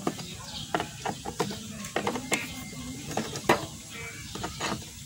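Ratchet socket wrench on a long extension bar loosening small 8mm bolts on a motorcycle's air filter cover: irregular metallic clicks and ticks, about ten in all, with uneven gaps.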